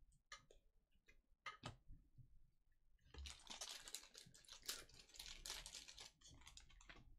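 Faint computer keyboard typing: a few separate key clicks, then about three seconds in a quick run of keystrokes.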